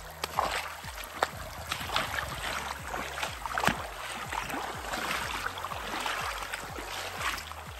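Water splashing and sloshing irregularly around legs wading through a shallow, stony river, over the steady rush of the running stream.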